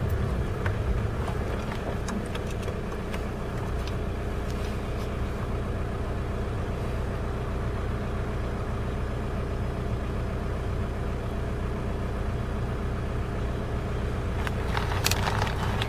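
Car engine running steadily, heard from inside the cabin as a low, even hum, with a few faint clicks near the end.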